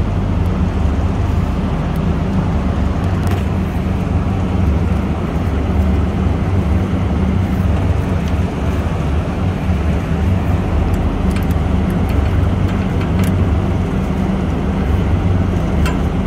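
Steady low drone of machinery running, loud and unchanging, with a few light clicks over it.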